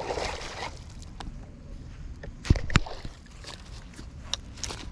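Small bass splashing at the surface as it is reeled in to the bank, followed by two sharp knocks and a few lighter clicks.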